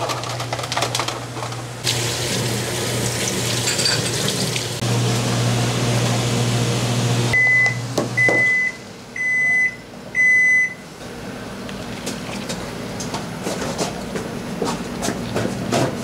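Kitchen sounds: running water rushes for a few seconds, then an electronic beeper sounds four even half-second beeps, all over a steady low hum, with light clatter of dishes and handling after.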